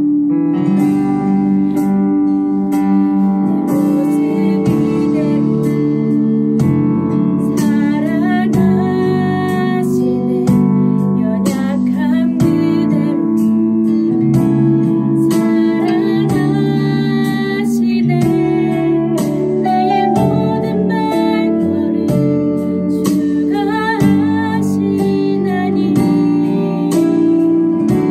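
A voice singing a Korean worship song with vibrato over held keyboard chords.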